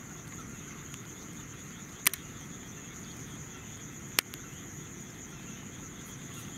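Crickets chirping in a steady high trill, with two short sharp clicks about two seconds apart.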